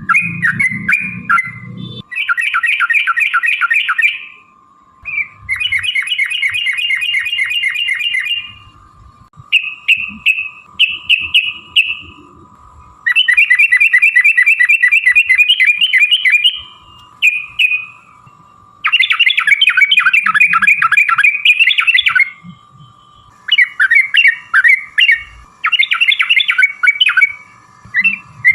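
Yellow-vented bulbul (trucukan) singing in long, rapid, rolling chattering phrases of one to three seconds each, repeated with short pauses. A faint steady tone sits underneath.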